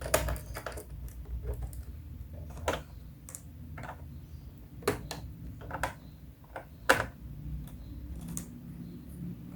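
Irregular small clicks and taps of a screwdriver and screws as screws are taken out of a laptop's bottom cover, with a few sharper knocks.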